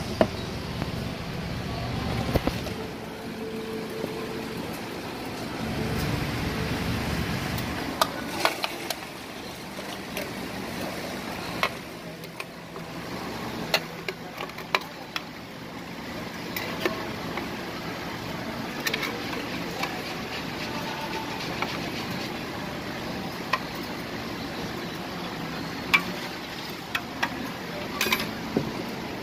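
Steady traffic and street noise with scattered short clicks and knocks, from the blender jar and plastic cups being handled and the smoothie poured.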